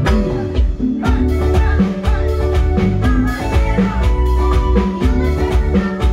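A band playing cumbia live, led by an electronic keyboard over heavy bass and a steady drum beat.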